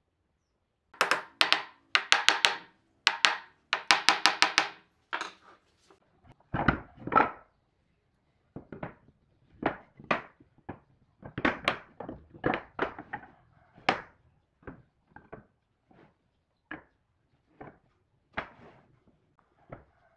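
Rapid metallic clicking and rattling with a ringing tone for a few seconds, as steel-pipe clamps are worked. Then a heavier thud and a series of separate wooden knocks as boards are set down and shifted on a wooden workbench.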